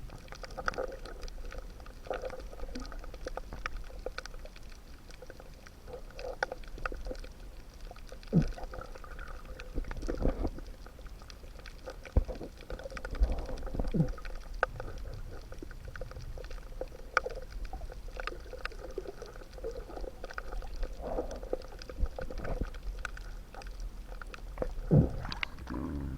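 Underwater ambience: many scattered clicks and a crackle over a steady low rumble, with a few short sliding tones, one about eight seconds in, one about fourteen seconds in, and one near the end.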